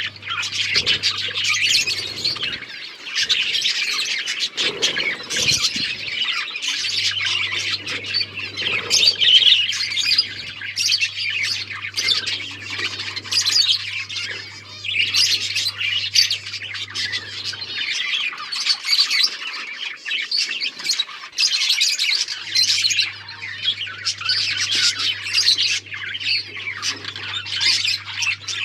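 A flock of budgies chattering, chirping and squawking without a break. A faint low hum comes and goes underneath.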